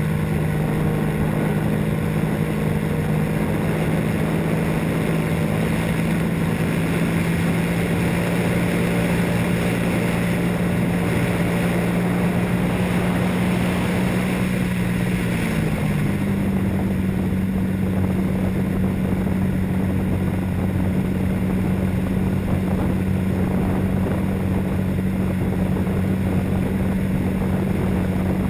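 Radio-controlled model airplane's motor and propeller running steadily in flight, heard from a camera mounted on the plane itself: a constant drone over a steady hiss, its pitch shifting slightly about halfway through.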